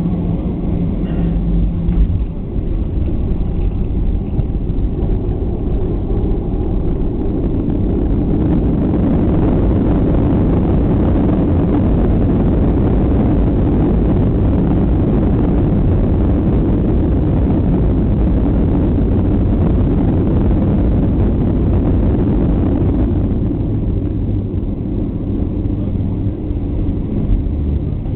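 Airliner cabin noise on landing: a thump as the main wheels touch down about two seconds in, then the runway rumble swells into a loud roar of the engines' reverse thrust for about fifteen seconds and eases off near the end as the aircraft slows.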